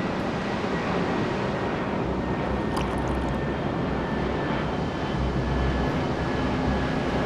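Steady rushing background noise, with a low rumble that comes in about two seconds in and a few faint high clicks about three seconds in.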